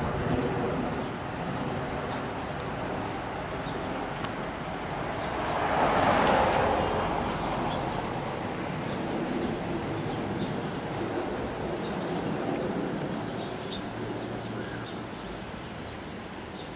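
Boeing 787-8 Dreamliner's Rolls-Royce Trent 1000 turbofan engines passing overhead on approach to landing: a jet rumble and rushing hiss that swells to its loudest about six seconds in, then slowly fades as the airliner flies away.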